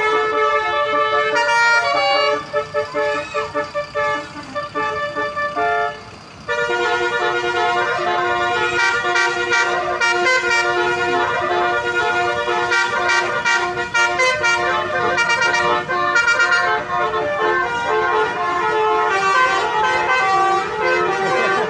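Indonesian bus 'telolet' horn: a set of multi-tone air horns playing a quick, tune-like run of notes almost without a break. The notes go choppier and softer a couple of seconds in, then play on loudly and steadily from about six and a half seconds.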